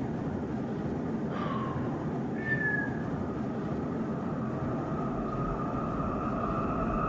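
Airliner cabin noise: a steady rushing hum of engines and air. Two short squeaks cut through it, one falling about a second and a half in and one held about a second later, and a thin steady high tone creeps in during the second half.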